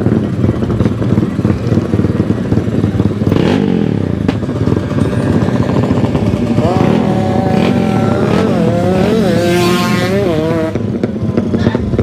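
Motorcycle engine running, then revved up and down several times in the second half before settling back.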